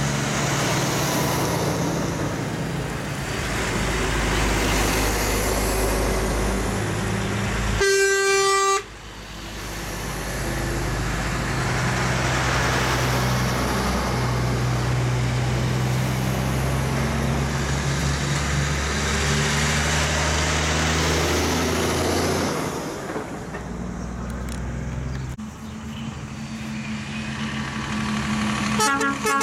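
Heavy diesel trucks driving past one after another, engines running and tyres on the road. About eight seconds in one truck sounds a loud horn for just under a second, and another horn blast starts near the end.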